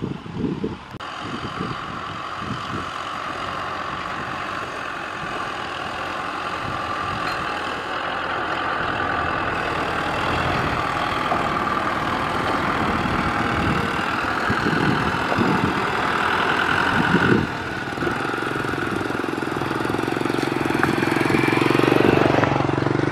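Kubota M6040SU tractor's four-cylinder diesel engine running steadily as it tows a loaded trailer, with scattered knocks and clatter. It grows louder toward the end as the tractor comes close, peaking shortly before the end, then eases.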